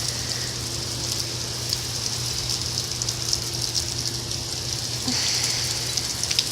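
Heavy rain pouring down, a steady hiss with many close drops ticking. It grows a little louder about five seconds in.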